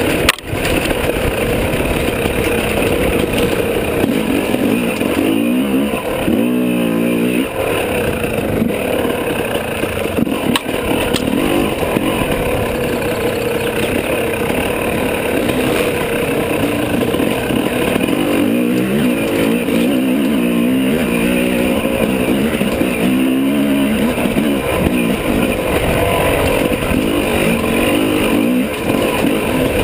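Dirt bike engine running hard on a trail ride, its revs rising and falling with the throttle, over heavy rattle and rushing noise. A sharp knock comes right at the start.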